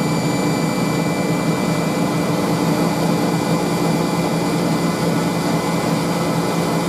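Hoover Spinarinse 3012A spin dryer running at full speed on its final spin: a steady motor hum with a constant high whine.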